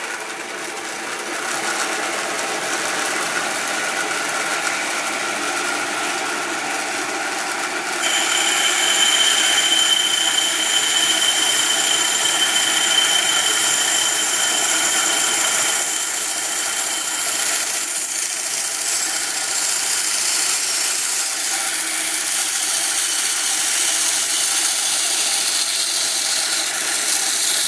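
Inland diamond band saw running steadily. About eight seconds in it gets louder and takes on a high whine as the diamond blade starts cutting into the glass of a wine bottle.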